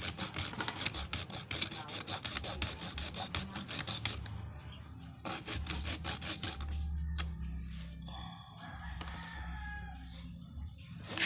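Hacksaw blade, held in the fingers, sawing into the case of a small box capacitor in quick, even back-and-forth strokes. The sawing breaks off briefly about four seconds in, then resumes more softly.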